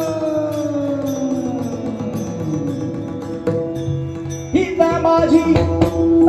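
Devotional kirtan singing: a voice glides slowly down in pitch over a steady held drone note, then about four and a half seconds in a louder sung line begins, accompanied by pakhawaj drum strokes.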